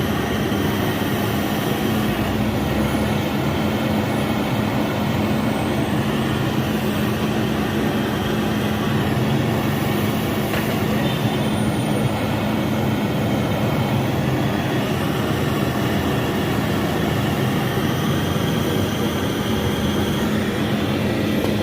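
Steady machine running noise with a constant low hum, unchanging throughout.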